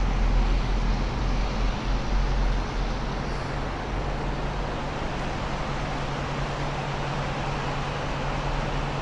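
Steady rushing hiss of rain and traffic on wet roads, with a low vehicle engine hum underneath; the deep rumble eases after about three seconds.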